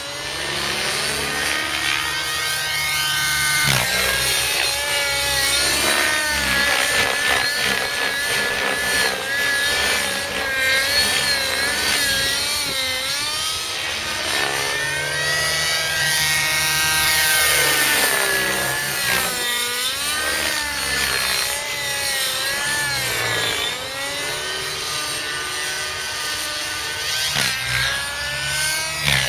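Velocity 50 nitro model helicopter being flown hard, its two-stroke glow engine and rotor screaming without a break, the pitch swinging up and down again and again.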